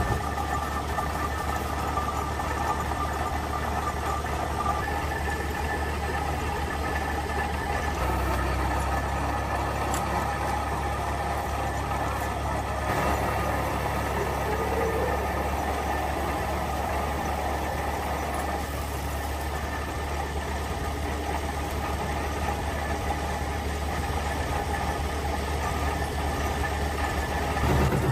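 Workshop machinery running steadily: a continuous low engine-like drone with a faint steady whine above it.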